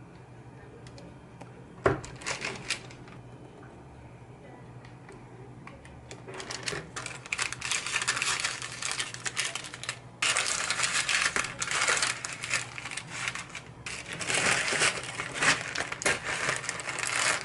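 Baking paper crinkling and rustling in long stretches of crackle as slices of butter are folded up in it, and a plastic zipper bag rustling near the end. A single sharp knock comes about two seconds in.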